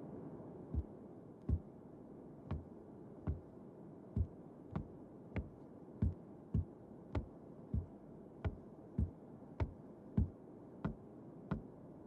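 Boot footsteps coming down the wooden stairs of a raised deer stand: a regular series of single thuds with a sharp wooden knock, about one step every two-thirds of a second.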